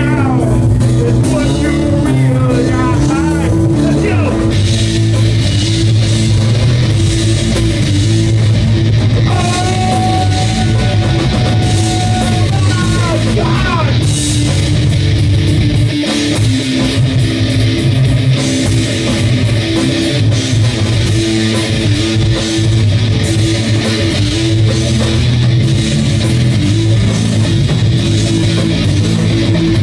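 Live rock band playing loud and without a break: electric guitars and a drum kit, with a vocalist over them and a long held note about ten seconds in. Captured on an iPad mini's built-in microphone.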